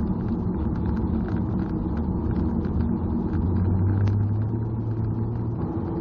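Car driving on a highway, heard from inside the cabin: steady engine and tyre noise, with a deeper hum from about three to five and a half seconds in.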